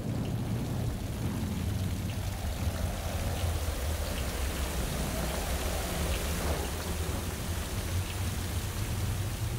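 Steady rain sound effect: an even hiss of falling rain with a low rumble underneath and a few faint drop ticks.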